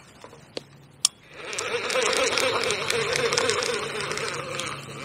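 Fishing reel being wound in steadily, a whirring with fine rapid ticking that starts about a second in, after a sharp click, as a small roach is brought in on the line.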